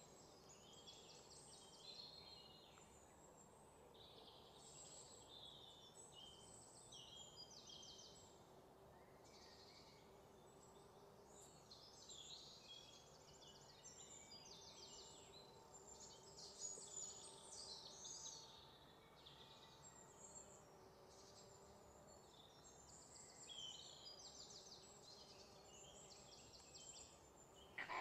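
Faint woodland ambience: many small, high-pitched bird calls and chirps overlapping, over a low even background hiss.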